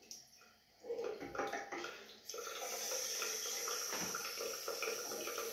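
A few light knocks, then bath taps come on a couple of seconds in and water runs steadily with an even hiss.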